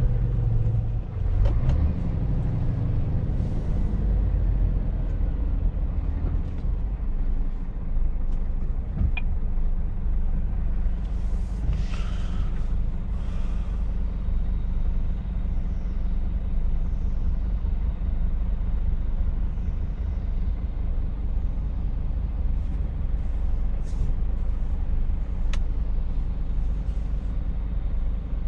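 Steady low rumble of a Scania truck's diesel engine and the road, heard inside the cab, heavier in the first few seconds. A short hiss comes about twelve seconds in, and a few faint clicks are scattered through.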